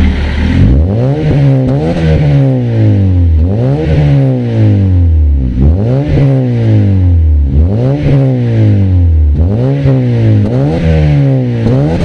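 Honda Civic FD four-cylinder engine revved in repeated blips through an axle-back exhaust with the resonator deleted and an HKS matte black muffler. Each rev climbs quickly and falls back, about every two seconds, six or so times.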